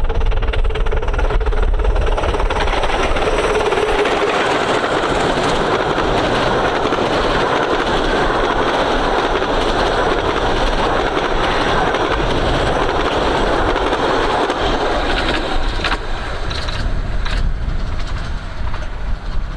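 A 15-inch gauge miniature-railway train running past. Its noise fills in over the first few seconds, holds through the middle and eases off near the end, with a few sharp clicks.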